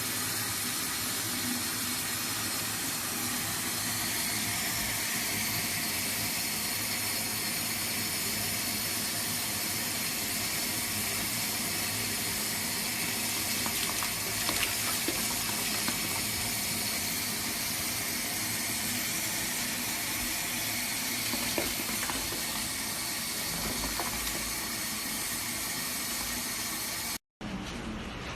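Water running steadily, a constant rushing hiss.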